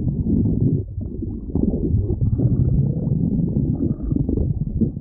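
Human stomach growling: low, continuous rumbling with a short lull about a second in.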